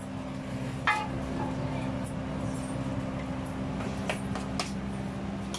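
Steady machine hum of kitchen equipment, with a sharp, ringing metal clink about a second in and two lighter clicks around four seconds as long-handled taiyaki irons and utensils are handled.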